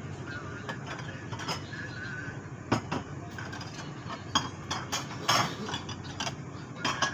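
Metal fork and spoon clicking and scraping against a ceramic bowl of instant noodles, in scattered sharp clicks with a longer noisy burst a little after five seconds in.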